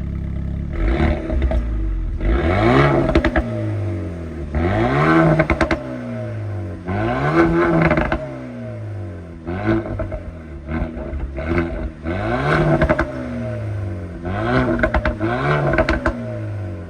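Renault Mégane 4 RS's 1.8-litre turbocharged four-cylinder through a catless exhaust, revving up and falling back again and again, about every two seconds, with sharp crackles and pops as the revs drop.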